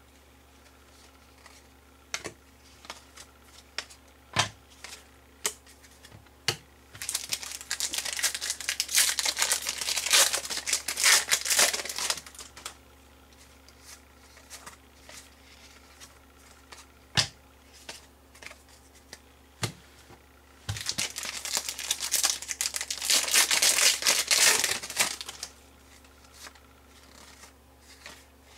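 Trading card pack wrappers crinkling and tearing as packs are opened, in two long stretches, one starting about a quarter of the way in and one about two-thirds in. Between them, short sharp taps and clicks of cards being handled.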